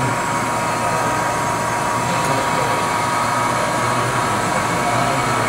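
Jones & Shipman Micromatic tool and cutter grinder's wheel-head spindle, driven by its 3/4 HP three-phase motor, running steadily: an even hum with a constant whine.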